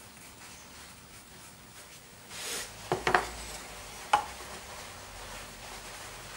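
Mitered eastern red cedar box sides, hinged with masking tape, being folded up into a box. A short scrape of wood sliding on the bench comes about two seconds in, then a few light wooden clicks and knocks around three seconds and once more a second later as the mitered corners meet.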